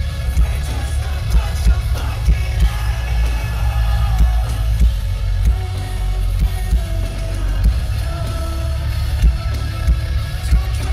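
Live metalcore band playing loud through a concert PA, with distorted guitars, drums and sung vocals, heard from within the crowd with a heavy, booming low end.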